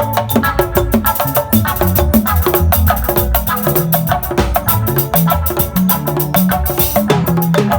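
Loud music with busy percussion: quick, even wood-block-like strikes over pitched melodic notes and a bass line.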